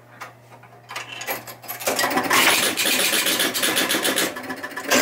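A few light clicks, then about two seconds in the 1976 Gottlieb Ship Ahoy electromechanical pinball machine starts a game on a coin: a loud, rapid clatter of the score motor, relays and score reels stepping back to zero as the game resets.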